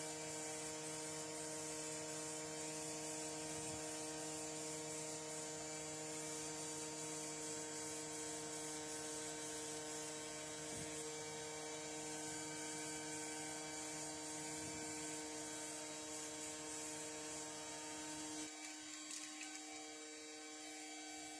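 Steady electrical hum, a constant drone of several fixed tones. About eighteen seconds in, its deepest part drops away and it goes quieter.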